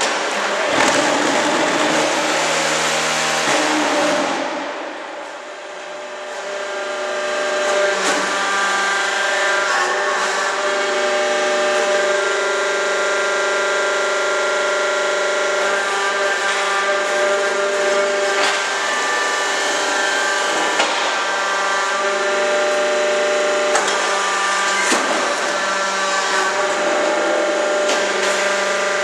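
QFT5-20 semi-automatic hydraulic concrete block machine running through its cycle: a loud, harsh noise for the first four seconds, then a steady hum with several held tones and a few sharp clunks.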